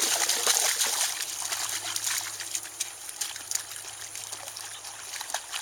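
Water splashing and trickling, many small crackling splashes that grow fainter toward the end.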